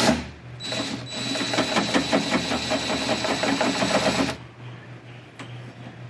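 Cordless DeWalt drill-driver with a socket extension running for about three and a half seconds, backing out a 10 mm door-handle screw. It gives a rapid mechanical chatter over a thin, steady high whine, then stops abruptly.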